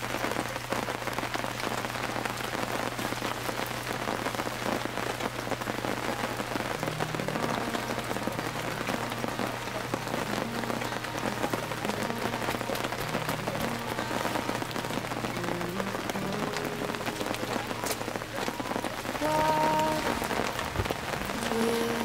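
Steady rain falling. Faint, slow background music with a held low note comes in under it partway through.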